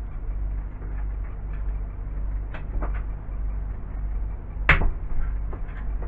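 Metal tools and parts being handled on a workbench: a few light clicks, then one sharper knock a little before the end, over a steady low hum.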